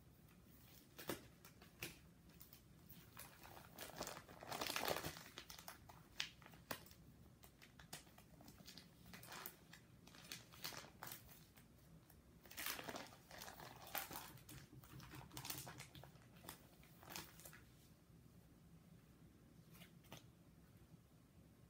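Plastic card-sleeve pages of a ring binder crinkling and rustling as baseball cards are slid into their pockets, with scattered small clicks. The rustles come in quiet bouts, loudest about five seconds in and again around thirteen seconds, and thin out near the end.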